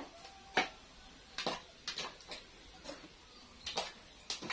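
Knife cutting small eggplants held in the hand over a metal bowl: a string of irregular sharp taps and clicks as the blade cuts through and pieces drop, the loudest about half a second in.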